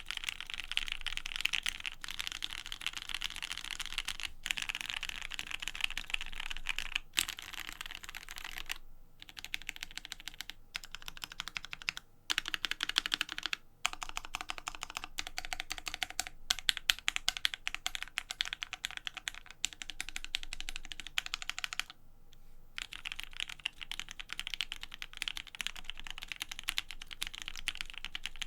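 Fast, continuous typing on a Savage65 mechanical keyboard with linear Gateron Ink Black switches and GMK Rudy ABS doubleshot keycaps. The keystrokes come as a dense stream of clicks, broken by a few short pauses.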